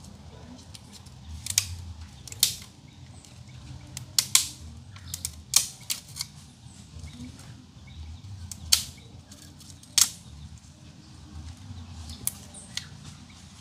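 Wood fire crackling: irregular sharp pops and snaps, about a dozen, over a low steady rumble.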